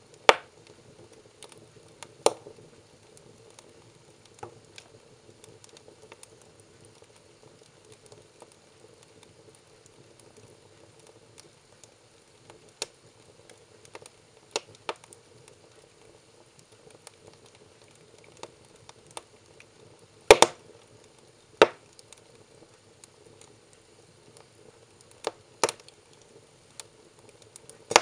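Firewood burning in a fireplace, crackling steadily with irregular sharp pops, the loudest two about twenty seconds in.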